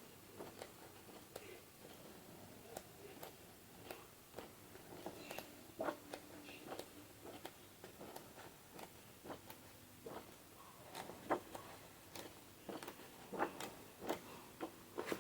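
Pages of an illustrated book being turned and handled: faint, scattered paper rustles and soft taps.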